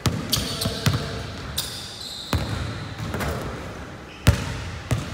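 Basketball bouncing on a hardwood gym floor during dribbling drills, sharp irregular thumps roughly a second apart with the loudest one about four seconds in. Brief high sneaker squeaks on the court twice in the first two seconds.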